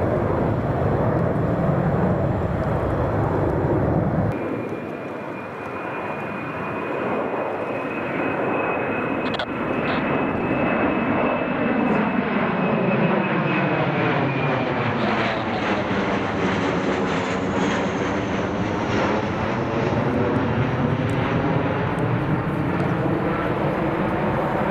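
Embraer KC-390's two IAE V2500 turbofan engines during a low display pass: a loud, steady jet roar with a thin high whine through the middle. In the second half, a sweeping, phasing swish falls and then rises again as the aircraft passes overhead.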